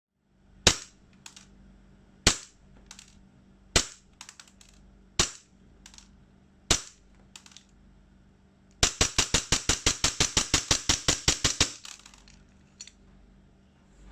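EMG/WE Hudson H9 gas blowback airsoft pistol firing through a chronograph. There are five single shots about a second and a half apart, each followed by a fainter click. Then comes a fast string of about twenty shots, roughly seven a second.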